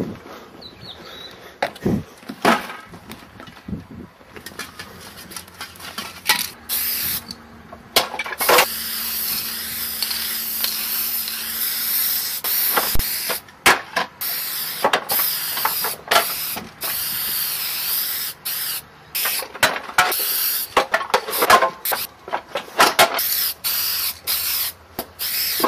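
Aerosol spray-paint can spraying in repeated hissing bursts with short pauses between them, starting about six seconds in. Before that, a few sharp knocks.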